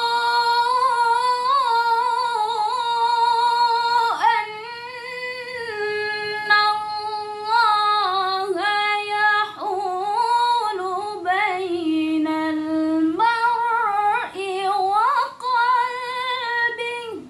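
A woman's solo voice reciting the Quran in the melodic tilawah style, with long held notes and ornamented turns. The pitch sinks lower about two-thirds of the way through, climbs back up, and the phrase stops abruptly at the end.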